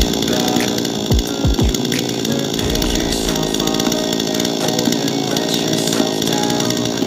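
Chainsaw running hard while cutting out a tree stump, with a few deep low thuds about a second in.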